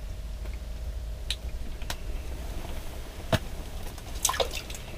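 A few sharp clicks and wet drips from handling a freshly caught bluegill over an ice-fishing hole, with a quick cluster of watery clicks near the end as it goes back toward the water. A low steady rumble runs underneath.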